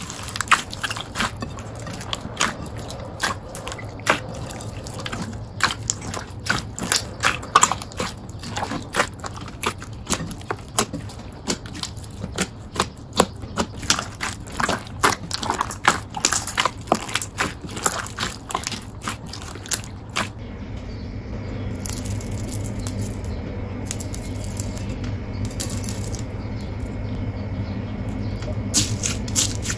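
Jelly slime squished and pressed by hand, giving quick sticky clicks and pops. About two-thirds of the way through, the clicks give way to a steadier wet sound with bursts of hiss, and the clicks return near the end.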